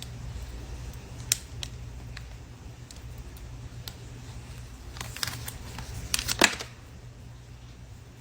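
Scattered sharp clicks and taps over a steady low hum, with a cluster of louder clacks about five to six and a half seconds in.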